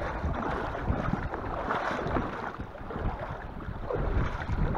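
Wind buffeting the microphone: an uneven rumble and hiss, with water sounds around a small boat and no motor running.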